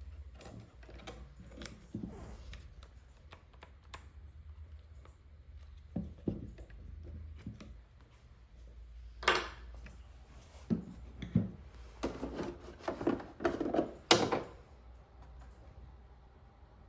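Irregular clicks, taps and knocks of hard objects being handled. Louder knocks come in the middle and just before the end.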